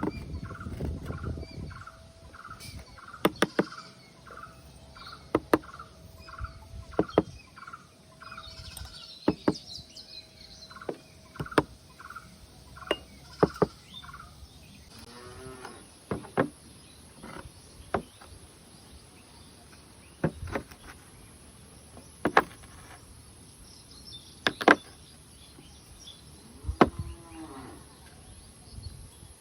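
Knife cutting through packed sand: a series of crisp, short cuts every one to two seconds. Repeated chirping calls sound in the background for about the first half.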